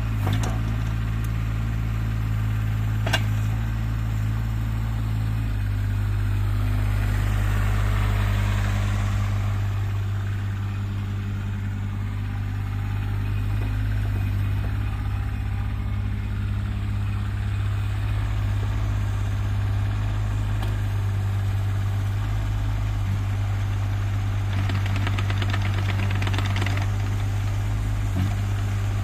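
JCB 8018 mini excavator's small diesel engine running steadily, with the hiss and whine of its hydraulics swelling and fading twice as the boom and arm move and the cab slews. A single sharp click about three seconds in.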